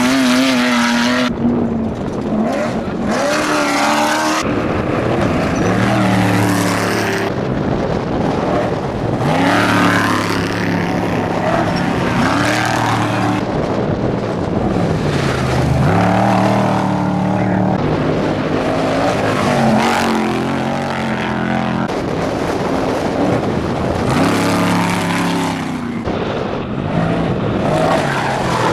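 Unlimited trophy truck engines revving hard, pitch climbing and dropping again and again as trucks power through the jump.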